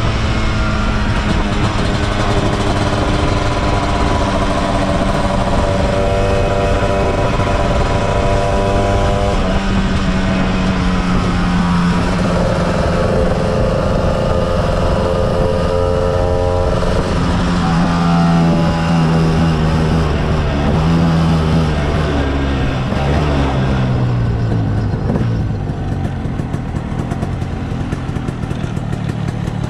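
KTM 250 SX two-stroke single-cylinder engine in a Vespa PX 200 scooter, running hard at road speed with its pitch stepping up and down through the gears. About two-thirds of the way through, the pitch falls away as the scooter slows, and it runs low and quieter near the end.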